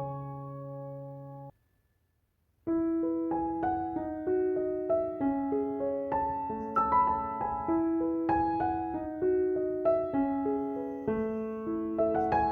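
Gentle background piano music. A held chord cuts off about a second and a half in, then after a second's pause a new piece begins with single notes about every half second.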